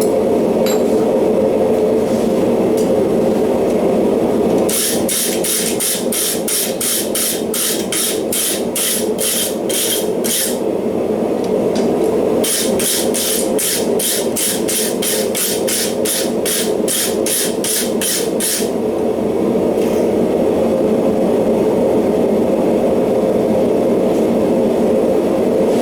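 Forge running with a steady rushing noise, over which a hammer strikes metal in two runs of even blows, about two or three a second, starting about five seconds in and again about twelve seconds in.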